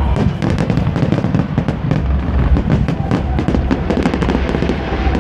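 Aerial fireworks shells bursting in quick succession: many bangs and crackles over low booms.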